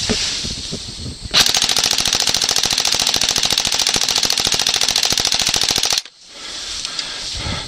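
Airsoft gun firing a long full-auto burst of rapid, evenly spaced shots, starting about a second and a half in and cutting off abruptly after about four and a half seconds.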